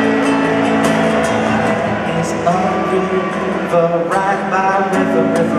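Live band music: acoustic guitar and drums with cymbal hits under male singing, heard in a large hall.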